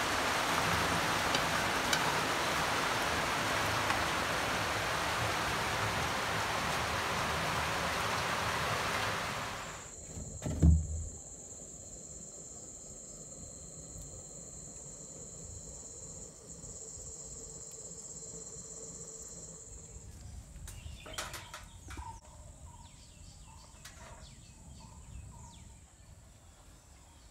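A steady, dense hiss for about nine seconds, cut off by a single low thump. After it, insects call on a steady high note for about ten seconds, then faint bird calls and small rustles fade out near the end.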